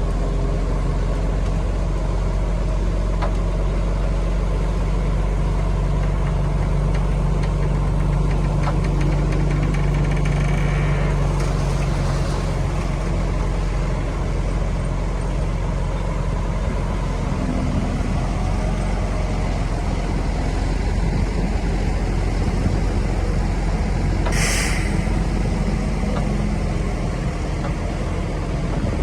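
Shantui bulldozer's diesel engine running steadily, with a brief hiss about three-quarters of the way through.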